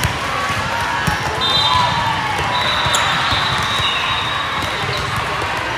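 Volleyballs thudding as they are hit and bounce, several times, over a steady background of voices.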